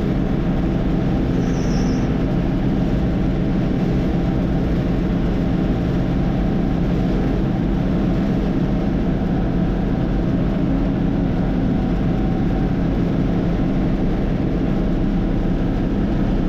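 Combine harvester running steadily: a constant low engine drone with no change in pitch.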